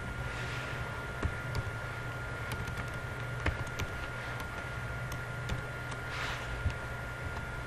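Computer keyboard keys being typed: a handful of separate, irregular clicks as letters and backspace are pressed, over a steady electrical hum with a thin high tone.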